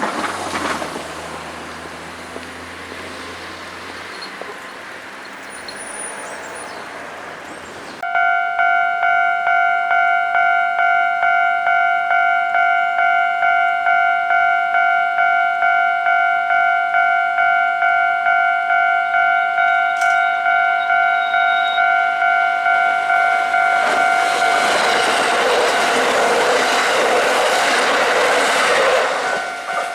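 Railway level-crossing warning bell that starts abruptly about 8 seconds in and rings steadily about twice a second, signalling an approaching train. Before it, the rumble of a passing Kintetsu train fades out. Near the end a train's running noise swells up over the bell as the train reaches the crossing.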